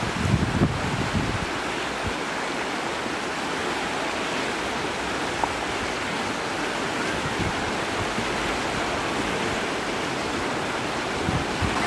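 Flood-swollen stream rushing fast over stones and along its bank: a steady rush of water. Wind buffets the microphone in the first second or so and again near the end.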